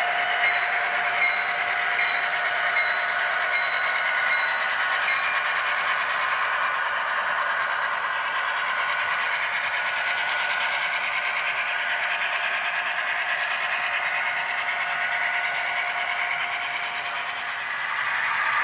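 HO scale model freight train running past on the layout: a steady, thin train sound without deep bass, as from small model locomotives and their cars on the track.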